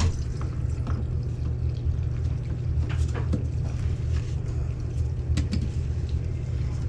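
Steady low rumble, with a few light clicks and knocks as a PVC drain cleanout cap is screwed back on by hand.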